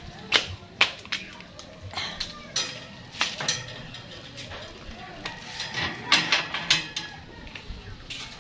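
Scattered sharp clicks and snaps from handled metal scissors, with rustling of cut alugbati (Malabar spinach) stems and leaves between them.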